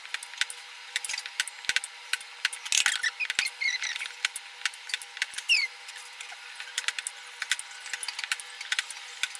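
Sharp, irregular cracks and taps, several a second, as snail shells are struck with a knife against a wooden log to break them. A few short high chirps sound between about three and six seconds in.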